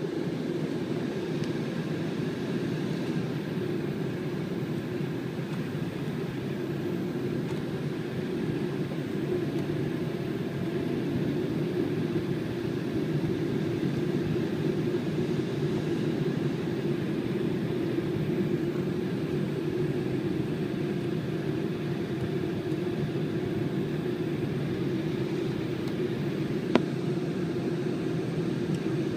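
Steady cabin noise inside an Embraer E190 airliner, its GE CF34 turbofan engines running at low power on the ground with no build-up in level. A single sharp click sounds near the end.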